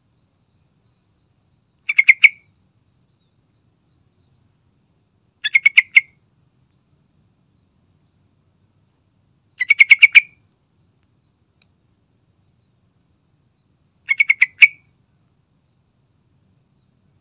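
Yellow-vented bulbul (trucukan) calling: four short calls spaced about four seconds apart. Each call is a quick run of about five notes.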